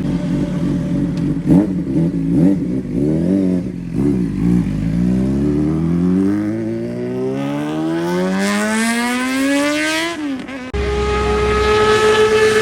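Sport motorcycle with an SC-Project aftermarket exhaust: a few quick throttle blips, then a long pull with the engine note rising steadily for about five seconds before dropping sharply. After a break it holds a high, steady note.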